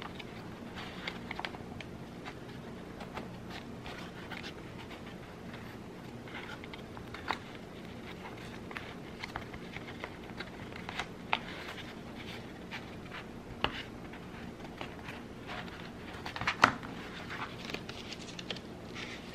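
Hands working a cork backing into a cheap plastic picture frame: soft scraping and rubbing with scattered light clicks, the loudest click near the end.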